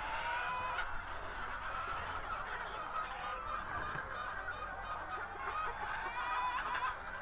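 A flock of chickens clucking and calling, with many short calls overlapping in a steady chorus.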